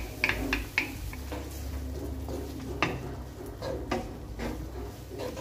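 Wooden spoon knocking and scraping against a glass bowl and a frying pan as tomato paste is scraped into the pan, then stirred through sliced peppers and onions: irregular light clicks and knocks, a cluster at the start and another around the middle.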